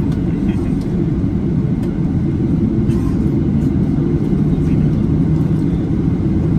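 Boeing 737-800 jet airliner: a steady low rumble, with a steady low hum growing stronger near the end.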